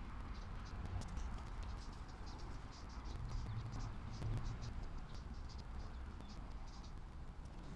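Insects chirping in short, irregular high-pitched trills throughout, over a steady low rumble.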